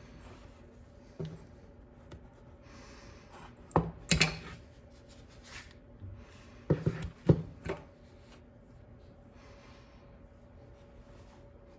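Handling noise as hands work the iPad and its charging cable: a few sharp knocks and clicks, bunched about four seconds in and again about seven seconds in, with soft rubbing between.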